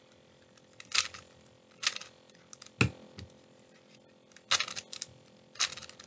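Plastic 3x3 Rubik's cube being turned by hand: about six sharp clicks and clacks of its layers, spaced irregularly, the loudest about three seconds in.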